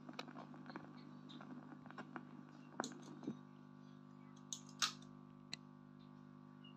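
Dual record player after the song has ended: faint crackles and clicks of the stylus riding the run-out groove over a steady hum. About three seconds in the crackle stops, and a few sharp mechanical clicks follow as the tonearm returns to its rest.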